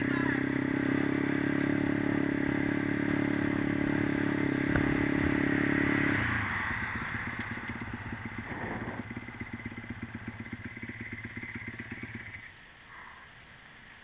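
Small single-cylinder pit bike engine running at a steady speed, dropping to a pulsing idle about six seconds in, then cutting off a second or two before the end.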